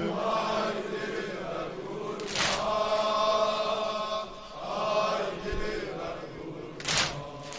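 Large crowd of male mourners chanting a lament refrain in unison, with two loud, sharp chest-beating strikes about four and a half seconds apart, one near the middle and one near the end.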